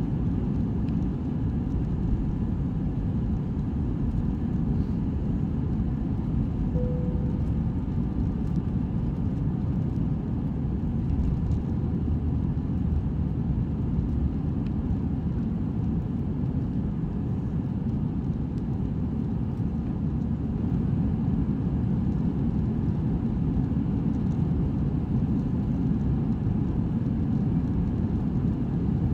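Cabin noise inside an Airbus A319 at lift-off and in the first climb: a steady low rumble from the engines at takeoff thrust and the airflow. A brief tone sounds about seven seconds in.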